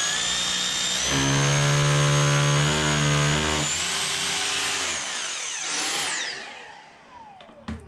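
Electric drill with a 5.5 mm masonry bit boring a hole in brickwork for a red wall plug. The motor runs at speed with a high whine. About a second in, a lower buzzing hum joins it as the bit bites, lasting a couple of seconds. Near the end the whine falls away as the drill winds down.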